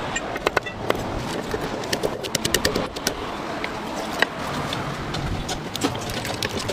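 Wooden pestle pounding in a mortar and a metal spoon clinking against its sides: runs of quick sharp knocks and clinks, busiest in the first three seconds and sparser after, over a steady background noise.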